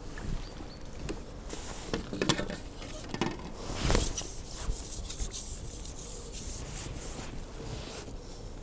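Rustling and light knocks from a landing net, pole and clothing being handled as a small fish is landed, loudest about four seconds in.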